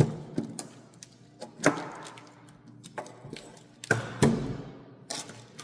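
A few irregular sharp knocks and thuds, each with a short ringing tail, as objects in a gym are handled and set down; the loudest come about two seconds in and around four seconds in.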